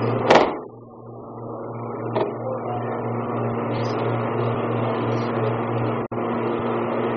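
An aikido partner being thrown lands on the mat with one loud slap of a breakfall, followed by a lighter knock about two seconds later. A steady low hum runs underneath.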